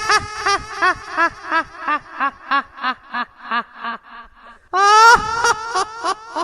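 High-pitched ghostly cackling laugh from a horror ringtone: a long held cry that breaks into a run of quick 'ha-ha' pulses, about three a second, growing fainter, then starting over with a second held cry near the end.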